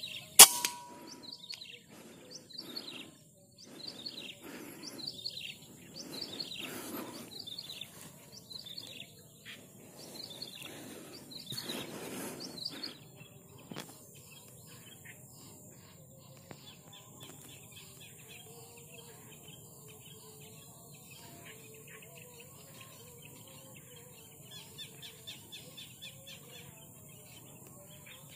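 A single sharp crack about half a second in. Then a bird calls over and over, about one harsh downward-sliding call a second, for some twelve seconds. After that only faint, high chirping of birds is left.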